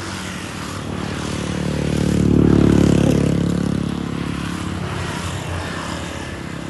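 A motor vehicle passing close by on a road: the engine noise swells to a peak about two to three seconds in, then fades, over a steady low engine hum.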